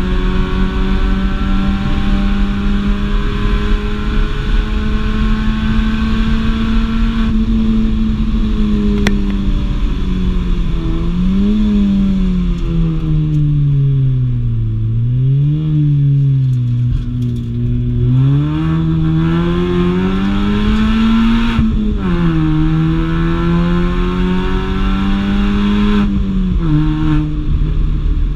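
Mini Cooper engine driven hard on a race track: held at high revs, then lifted off with the revs falling and blipped twice on downshifts, then accelerating again with a sharp drop in pitch at a gear change, and lifting off once more near the end.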